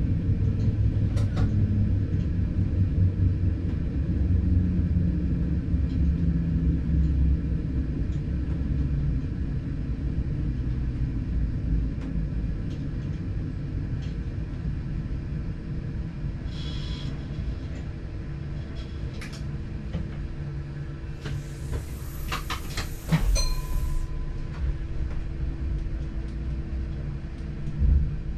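Low running rumble of a diesel multiple unit heard from its driver's cab, slowly fading. A short high tone sounds about two-thirds through, then a burst of hiss with a few sharp clicks, and a knock near the end.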